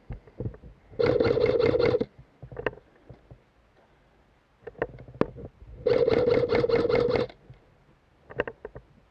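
G&G airsoft electric rifle firing two full-auto bursts, the first about a second long and the second about a second and a half, each a fast even chatter of shots over the gearbox's steady whine. Scattered sharp clicks and knocks fall between the bursts.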